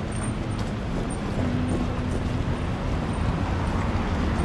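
City street traffic: cars and trucks running past with a steady rumble of engines and tyres.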